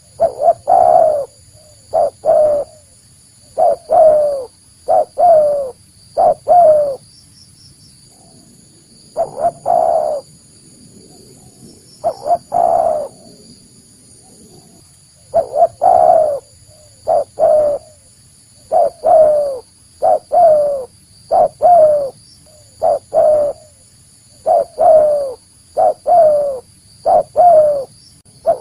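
Spotted dove (tekukur) cooing loudly in phrases of two or three short coos, each bending in pitch, with pauses of about a second or more between phrases. This is the dove call used as a lure to bring in wild spotted doves for trapping.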